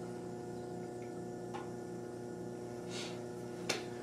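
Steady electrical hum with a couple of faint ticks.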